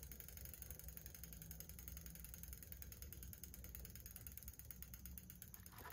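Faint, rapid, evenly spaced ticking of a bicycle's rear freewheel pawls as the rear wheel of a 1977 Colnago Super spins freely on the stand.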